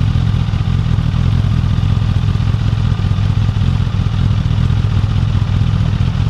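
2015 Suzuki GSX-S1000's inline-four engine idling steadily at about 1100 rpm through its stock exhaust.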